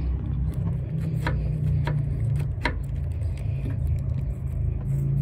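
A low steady rumble with three sharp plastic clicks, about a second, two seconds and nearly three seconds in, as a headlight-assembly retaining clip is worked into place by hand.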